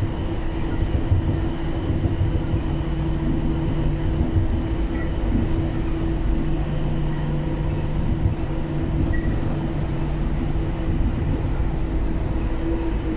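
Bangkok Gold Line rubber-tyred automated people mover (Bombardier Innovia APM 300) running along its elevated guideway, heard from inside the front car. It makes a steady rumble with a constant motor hum and no speech as it runs into the station.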